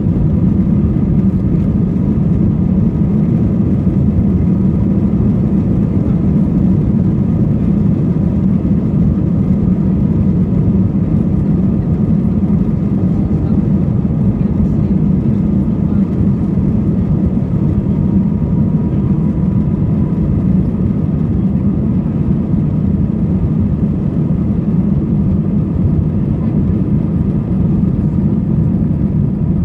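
Airbus A320 cabin noise during takeoff: a steady, loud, deep rumble of the engines at takeoff thrust and rushing air, with a faint steady whine above it, heard from inside the cabin.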